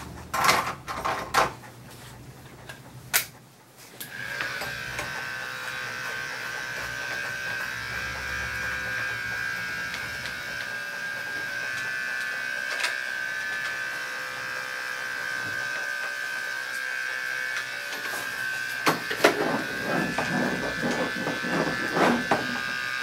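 Andis Endurance detachable-blade electric dog clipper with a #10 blade switched on about four seconds in and running with a steady high hum. Before it starts there are brief handling knocks, and near the end a few short sounds over the hum.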